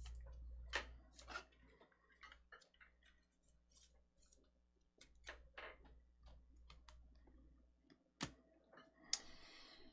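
Near silence with faint, irregular small clicks and taps, as from cards and plastic being handled on a desk, and a short soft rustle near the end.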